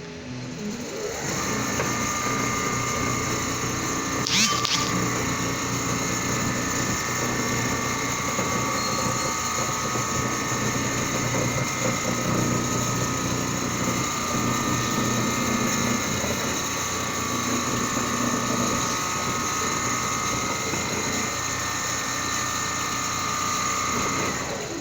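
Richpeace large-format CNC sewing machine running steadily: its motors whine over the clatter of the stitching mechanism. The sound starts about a second in and stops just before the end, with a brief high squeak about four seconds in.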